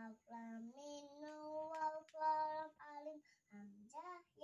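A young child's voice chanting in sing-song with long held notes, the way Arabic hijaiyah letter names are recited from a chart.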